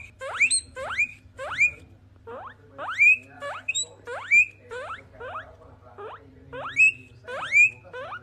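Guinea pigs wheeking: a steady run of short, rising squeals, about two a second, with brief lulls between runs.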